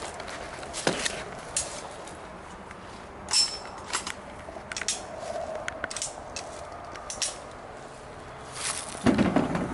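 Footsteps through dry grass and leaves with scattered clicks and knocks of things being handled, the sharpest click about three seconds in and a louder burst of rustling near the end.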